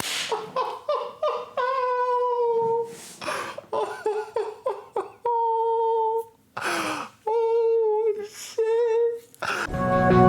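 A high-pitched voice making short syllables and several drawn-out, held vocal sounds, broken by sharp breathy bursts; music starts near the end.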